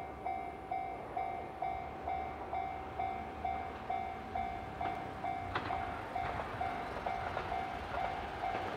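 Railway level-crossing warning bell dinging steadily about twice a second, a single repeated electronic tone, while a Marine Liner electric train approaches with a low rumble; a few sharp clicks come about five and a half seconds in.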